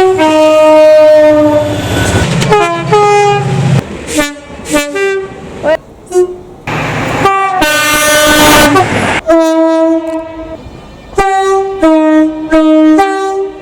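Locomotive air horns sounding a long chord blast, then a run of short blasts, another long blast, and a string of short blasts near the end, with abrupt switches between different horns. A low train rumble runs under the first few seconds.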